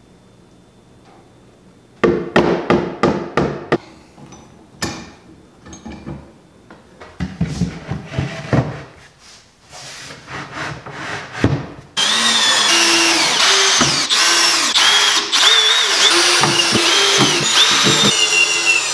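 A series of sharp wooden knocks and clatter as the plywood box is fitted together and clamped. About twelve seconds in, a Milwaukee cordless drill starts driving pocket-hole screws into the box's bottom, its motor whine rising and falling in short runs, one after another.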